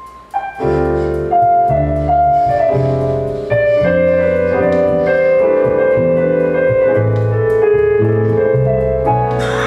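Piano and bass begin playing together about half a second in: a slow jazz tune with sustained chords over a bass line.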